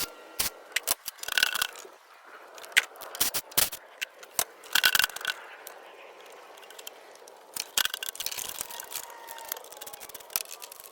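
Metal hand tools clinking, clicking and scraping against metal parts in irregular clusters, some strikes ringing briefly.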